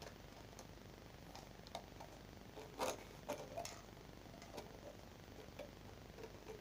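Scattered light plastic clicks and knocks as the plastic cover of a Star Master night-light projector is handled and pushed onto it, the loudest knock about three seconds in.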